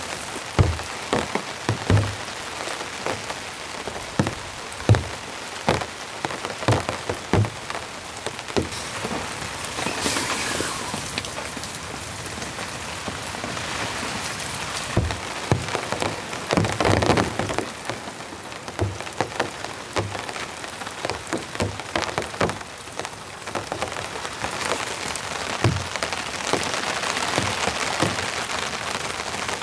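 Steady rain, with heavy drops knocking irregularly and sharply through it, and two louder rushes of noise about a third and just over halfway through.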